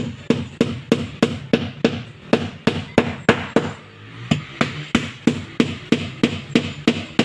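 Claw hammer driving nails through plywood planking into a wooden boat frame, in steady blows about three a second. The blows stop briefly a little past halfway while a new nail is set, then carry on.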